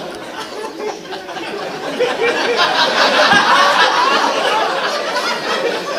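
Audience laughing, many voices together, swelling about two seconds in.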